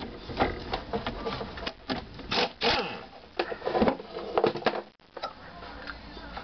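Socket ratchet clicking in quick, irregular runs while a 14 mm bolt is loosened, with metal clinks and scrapes from the brake hose bracket being worked free; it cuts off suddenly about five seconds in.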